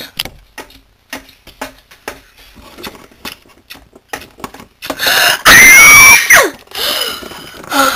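Light clicks and taps from small plastic toy figurines being handled and set down. About five seconds in comes a very loud, high squeal lasting about a second and a half, its pitch sliding up and then down, loud enough to distort.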